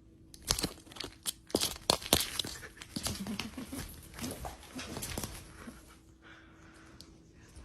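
A dog handling balls in its paws and mouth, making a rapid, irregular series of clicks, knocks and rustles that die down about five and a half seconds in.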